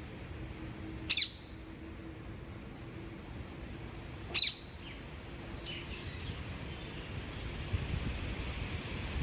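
A bird giving short, sharp calls that fall steeply in pitch: two loud ones about a second and four seconds in, then a few fainter ones, over a low background rumble.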